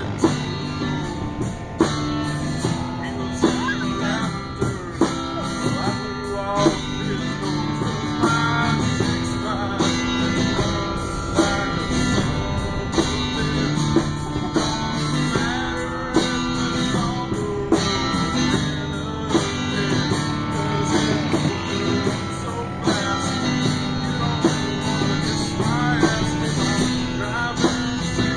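Background music: a guitar-led song with singing and a steady beat.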